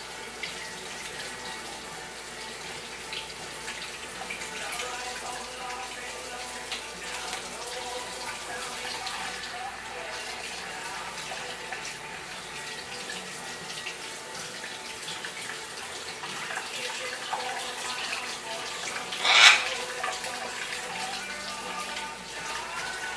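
Water running steadily from a tap. About nineteen seconds in, a single short, loud, sharp sound stands out.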